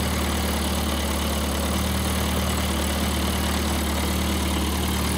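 Spark-ignition engine running on wood gas from a downdraft gasifier, idling steadily with an even, unchanging beat.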